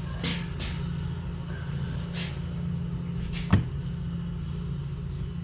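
Hands and tools working at the wood chipper's stuck fuel tank: a few brief scrapes and one sharp knock about three and a half seconds in, over a steady low hum.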